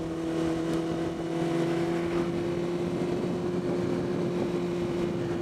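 Honda CBR600RR's inline-four engine holding a steady note at cruising speed, under a rush of wind and road noise.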